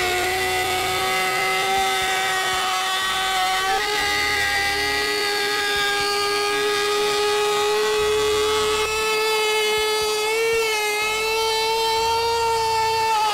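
DeWalt palm router with a bearing-guided flush trim bit, running at speed and cutting along the edge of a stacked wooden tree cutout. It makes a steady high whine whose pitch rises slightly a few times as it cuts.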